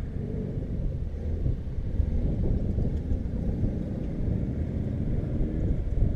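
Car running: a steady low rumble with no sharp events.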